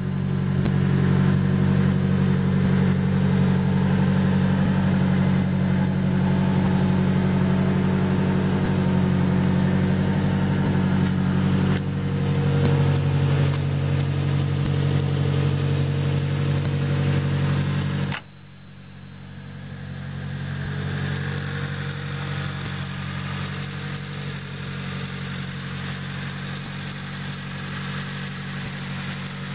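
Nissan Silvia S13's 2.1-litre SR20 four-cylinder engine, built to around 400 hp, running at a steady idle. About two-thirds of the way through the level drops sharply, and the engine comes back quieter.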